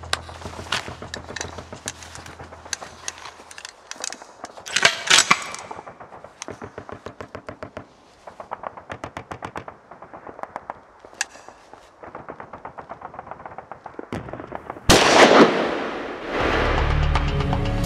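Battle gunfire: bursts of rapid machine-gun fire and scattered single shots, with one loud blast about fifteen seconds in. Music comes in near the end.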